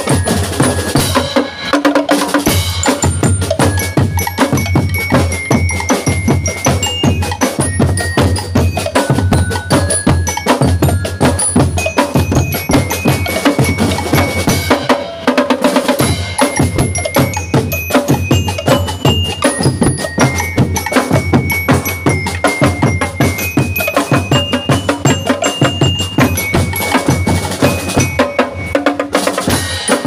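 Drum and lyre marching band playing a cha-cha/rumba beat: metal bell lyres ring out the tune over bass drums, snare drums and tenor drums.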